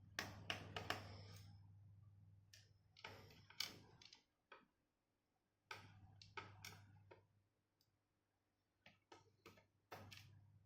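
Faint, irregular small clicks and taps from a screwdriver working the small screws on a laptop's drive bay, coming in loose clusters with short silent gaps.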